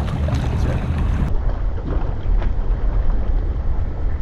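Wind buffeting the camera microphone as a steady low rumble, with water sloshing against the rocks.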